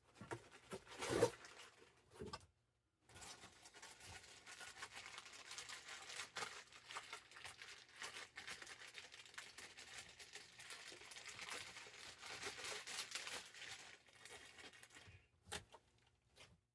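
Packaging of a mailed package being torn open and handled: a few sharp tearing bursts in the first couple of seconds, then a long stretch of steady rustling and crinkling, with a couple of sharp clicks near the end.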